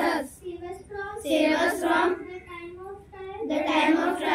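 A small group of children singing a prayer together in unison, in phrases of held notes.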